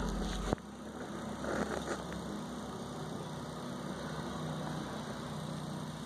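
A steady low mechanical hum, like an engine idling, with a heavy low rumble that cuts off about half a second in.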